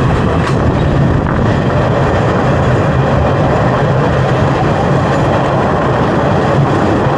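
Passenger train running along the track, heard from an open carriage door: a steady, loud rumble and rattle of the wheels and carriage.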